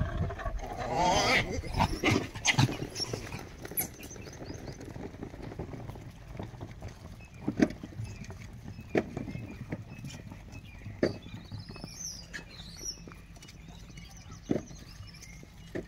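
A troop of gray langurs feeding on bananas on sandy ground: scattered soft knocks and taps. There is a brief rough vocal sound about a second in, and a few bird chirps near the middle.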